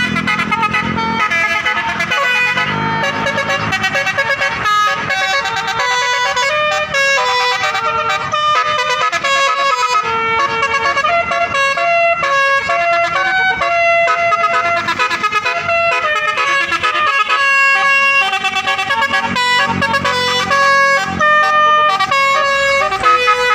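Bus 'telolet' basuri horn, a set of musical air horns, playing a continuous tune of held notes that change in quick steps, loud and unbroken.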